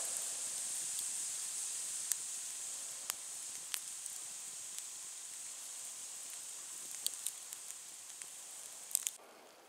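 Wood campfire hissing steadily, with a handful of sharp crackles and pops from the burning logs. The hiss slowly fades and cuts off near the end.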